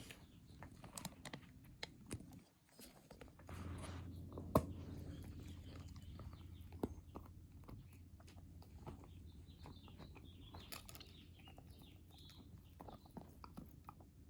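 A nine-month-old puppy chewing a chicken-flavored roll treat: irregular small clicks and crackles of teeth working on the chew.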